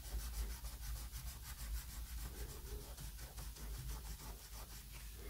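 Soft pastel rubbed on paper in rapid, regular strokes, a faint dry scratching as the pastel is worked onto the surface.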